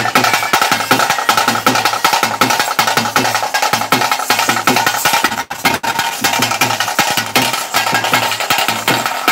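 Loud live music: fast, dense drumming with a sustained pitched instrument held over it.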